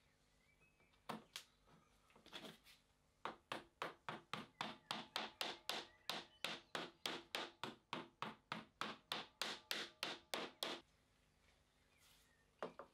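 Quick, even strokes worked over the potato chip cutter's steel blade grid, about three a second for some seven seconds after two single strokes. Near the end comes a knock as the grid is set into the cast-iron frame.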